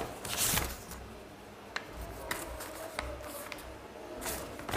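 Faint handling noises: a short rustle near the start, a few light clicks and taps, and another brief rustle near the end, over a low steady room hum.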